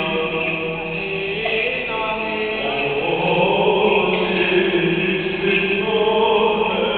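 Greek Orthodox liturgical chant: voices singing long held notes that move slowly from pitch to pitch, echoing in a church.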